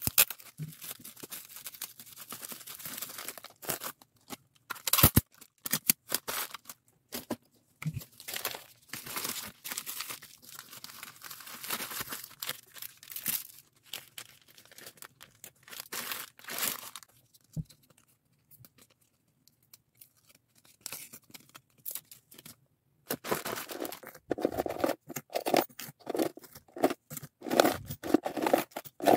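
Plastic packaging being handled: bubble wrap and a plastic mailer bag crinkling, rustling and tearing under the hands, with a quieter stretch past the middle. Near the end come rapid clicks and rattles of hard plastic fused-bead pieces being sorted.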